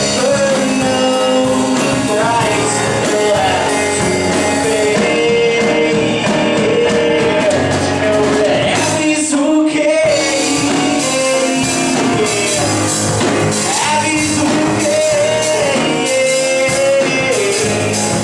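Background music: a rock-style song with a singing voice over a band, playing steadily.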